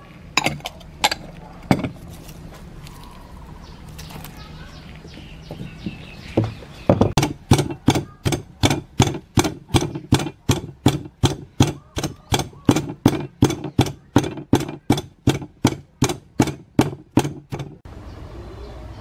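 A wooden pestle pounding chilies, garlic and salt in a mortar: evenly spaced strikes, about three a second, for around eleven seconds. A few separate knocks come before the pounding starts.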